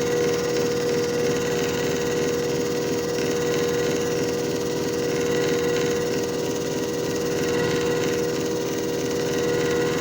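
JFJ Easy Pro disc repair machine running: its motor gives a steady hum with a strong, constant whine that does not change in pitch or level.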